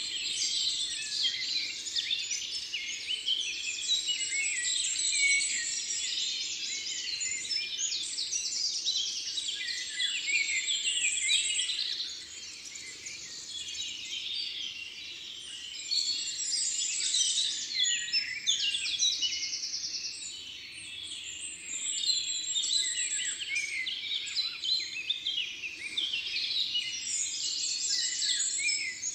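Several songbirds singing at once, a dense chorus of overlapping chirps and rapid trills, dropping quieter for a few seconds twice, about twelve seconds in and again past twenty seconds.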